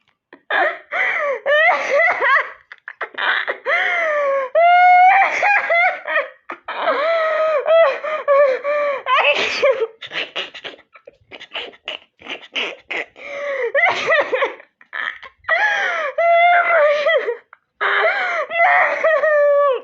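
Hard, high-pitched human laughter in long bursts with sliding, squealing pitch and short breaks for breath between them.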